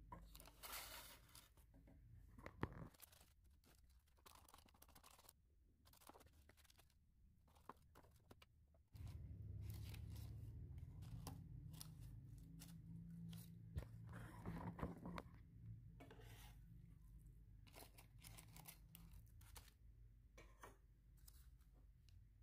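Faint scrapes and clicks of a spoon working a wet vegetable batter, first in a steel bowl, then scooping it into a baking-paper-lined tin. A low steady hum comes in about nine seconds in.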